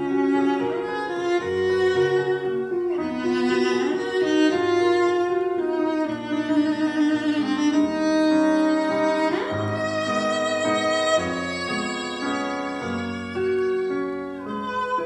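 Classical music for bowed strings, with violin to the fore over lower strings, playing held notes with vibrato. It is played back through an old McIntosh hi-fi amplifier.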